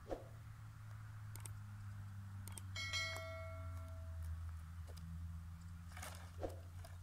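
Dry firewood sticks knocking and crunching together as an armful is carried and set down on the ground, with a short ringing clack about three seconds in and a cluster of knocks near the end as the wood is laid down. A steady low rumble runs underneath.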